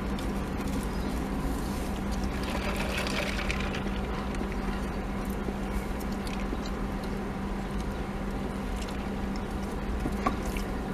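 Steady low hum of a car idling, heard inside the closed cabin, with a few faint clicks and rustles.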